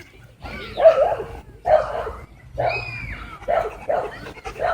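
A dog barking repeatedly, a string of about six barks.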